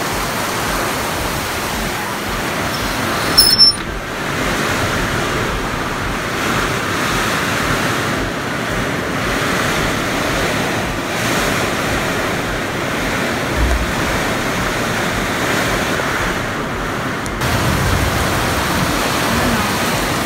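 Torrential rain pouring down on corrugated metal roofs and floodwater: a dense, steady hiss. A brief sharp knock about three and a half seconds in.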